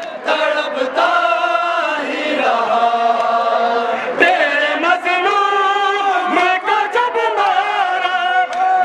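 A crowd of men chanting a noha, a Shia lament for Ashura, in unison in long sung lines. Sharp slaps of hands striking chests in matam break in here and there.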